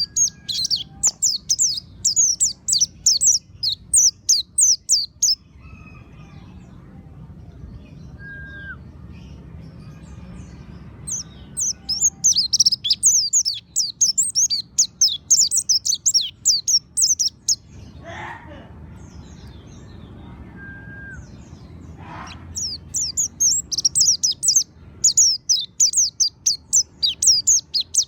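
Mountain white-eye (pleci monty) singing three bouts of rapid, high twittering, each several seconds long. Between the bouts there are pauses of about five to six seconds with only a faint low hum.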